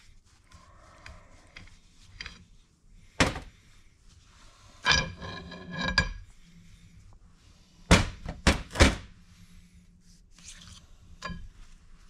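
Steel parts of a John Deere 310D backhoe's hydraulic cylinder being handled: the piston and gland are slid off the piston rod, with several sharp metal knocks and a ringing metal clatter about five seconds in.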